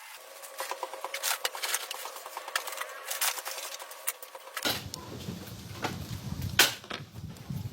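Scattered light clicks and taps of small hard objects being handled; about two-thirds of the way through a low rumble comes in underneath.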